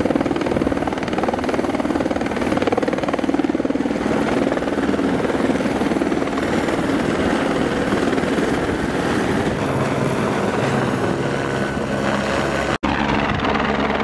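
An Airbus AS350-type single-engine helicopter's turbine and rotor running at takeoff power as it lifts off and climbs away, with a steady, rapid blade chop. Near the end the sound drops out for an instant and comes back as a steadier, lower drone.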